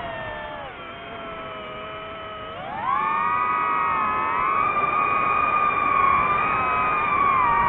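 DJI FPV drone's motors and propellers whining in several close tones. The pitch drops in the first second as the throttle eases, rises sharply about three seconds in, then holds high with small wavers.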